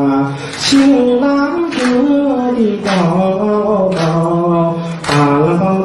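A man singing unaccompanied, long held notes that glide from one pitch to the next, in short phrases about a second apart.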